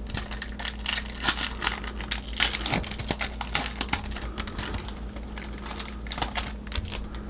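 Crinkling and rustling of a Topps Chrome baseball card pack and its cards being handled and flipped through, as a stream of irregular crackles, over a faint steady low hum.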